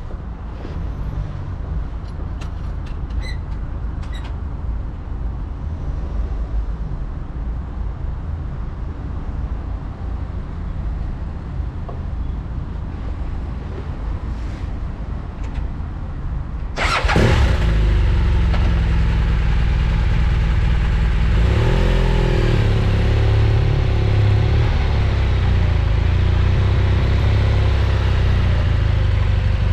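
Low rumble of wind on the microphone with a few light clicks near the start. About halfway through, a BMW R1200GS Adventure's flat-twin engine starts with a sudden burst and settles into a steady idle, briefly rising and falling in pitch a few seconds later.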